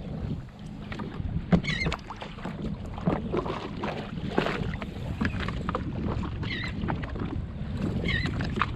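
Personal watercraft engine running steadily at a low idle, with water splashing, short knocks and wind buffeting the microphone. A few short, wavering high chirps come through about two seconds in and again near the end.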